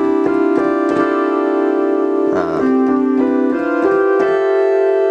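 Sequential OB-6 analog polyphonic synthesizer playing a sustained patch: two or three notes held at once, the notes stepping to new pitches several times, with a brief noisy swirl about two and a half seconds in.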